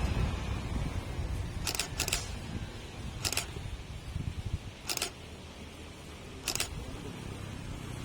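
Canon EOS 4000D DSLR shutter firing: a quick double shot about two seconds in, then single shots spaced a second or two apart, over a low steady rumble.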